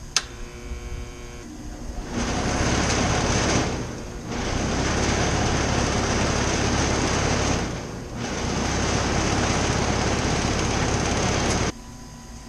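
Rheem outdoor AC condensing unit starting on its newly fitted run capacitors: a sharp click as the contactor pulls in, a brief hum, then about two seconds in the compressor and condenser fan come on with a loud steady running noise that dips twice and cuts off abruptly near the end.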